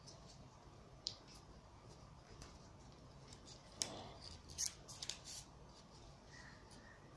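Origami paper being folded and creased by hand: faint rustling with a few sharp paper crackles, one about a second in and a cluster of them around the middle.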